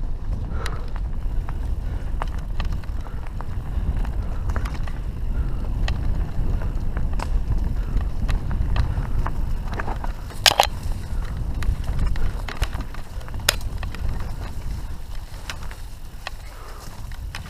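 Mountain bike riding down a dirt forest singletrack, heard from the rider's camera: a steady low wind rumble on the microphone and the tyres rolling, with frequent clicks and rattles from the bike. The sharpest clicks come about ten and a half and thirteen and a half seconds in.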